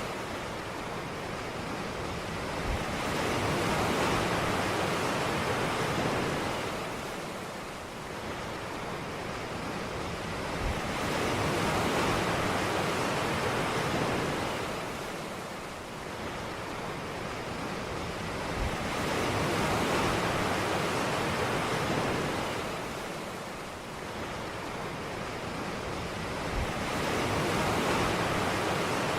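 Ocean waves washing onto a beach in slow, regular surges, each one swelling and fading away about every eight seconds.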